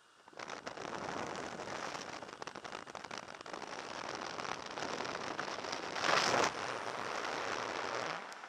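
Rushing wind blasting and crackling on a skydiver's camera microphone at the open door of a jump plane and on into freefall, with a louder blast about six seconds in. It drops away sharply near the end.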